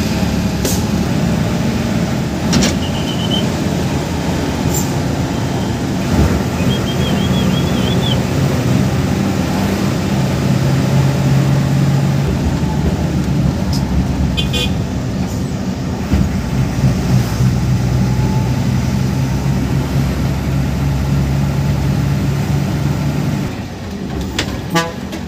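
Bus diesel engine running at road speed, heard from inside the driver's cabin, a steady low drone mixed with road and cabin rattle and a few short sharp sounds. Near the end the engine noise drops as the bus eases off.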